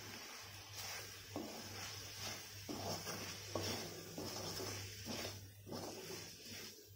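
Wooden spatula stirring chopped onions and spice powders in a kadhai, in repeated short scraping strokes about once a second, over a low steady hum.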